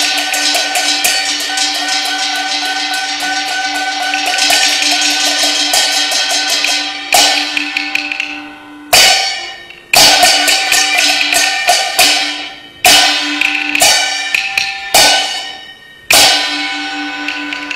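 Jin opera percussion band of gongs and cymbals: a fast, dense roll of strokes for about seven seconds, then single loud crashes about once a second, each ringing away, over a steady held tone.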